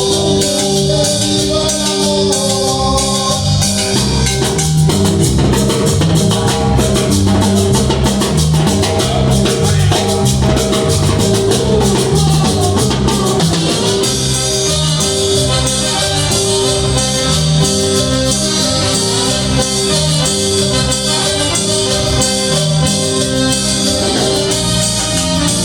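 Cumbia played from samples on an Akai MPX8 pad controller: a steady rhythm of shaker-like percussion and drums over a repeating bass line, with the high percussion growing fuller about halfway through.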